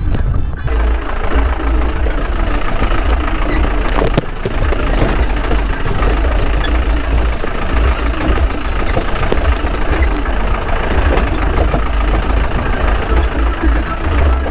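Off-road jeep engine running with a heavy, steady low rumble and road noise as it drives. Background music cuts off about half a second in.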